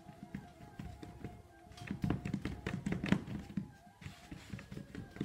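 Hands rolling a coil of stiff stoneware clay back and forth on a canvas-covered worktable: a quick run of soft thumps and rubs, densest about two to three and a half seconds in. Quiet background music runs underneath.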